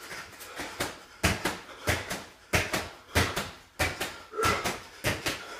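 Bare feet landing on a rubber floor mat in repeated tuck jumps, knees to chest. There is a thud about every two-thirds of a second.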